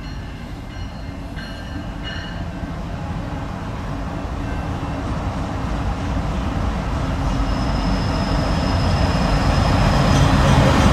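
Approaching BNSF GE ET44C4 diesel locomotives pulling a stack train, their V12 diesel engine rumble growing steadily louder as they near. A thin, steady high whine joins in the later part.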